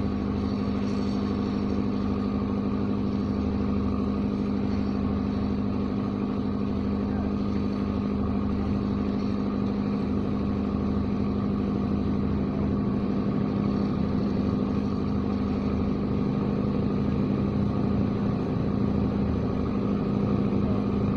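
An engine running steadily at idle: a low, even drone that does not change.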